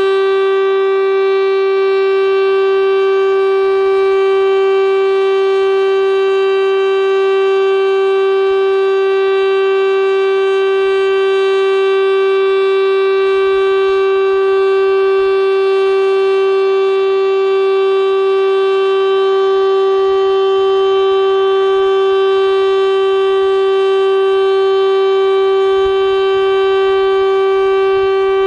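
Federal Signal STL-10A electromechanical tornado siren sounding its Alert signal at full speed: one steady, loud tone at an even pitch, with no rise and fall in loudness.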